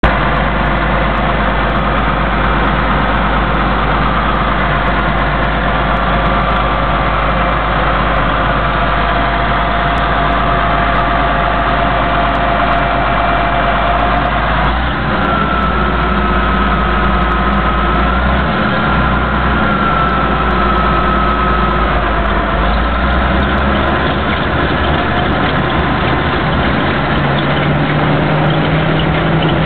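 Caterpillar D6 bulldozer's diesel engine running steadily, with a thin whining tone above it that shifts higher about halfway through.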